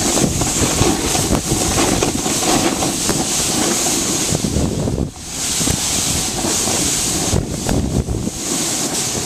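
Wind buffeting the microphone of a handheld camera carried by a moving snowboarder, over the steady hiss of the snowboard sliding and carving across the snow. The rushing briefly drops about five seconds in.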